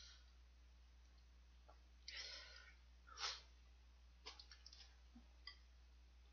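A person slurping spicy stir-fried ramen noodles: two short slurps about two and three seconds in, the second the louder, then a run of small wet mouth clicks as he chews.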